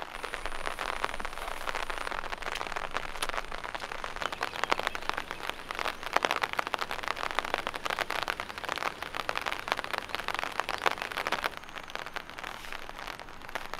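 Steady rain falling: a dense, even patter of drops.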